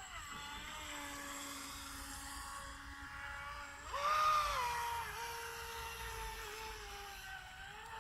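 Electric motor of a Volantex Blade 4S radio-controlled boat whining at varying throttle. It rises sharply in pitch and loudness about four seconds in, then eases back down.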